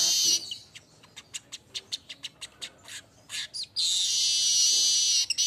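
Manyar weaver song: a brief high wheezy buzz, then a run of short dry ticking chips, about four or five a second. From about four seconds in comes a loud, dense, high sizzling buzz.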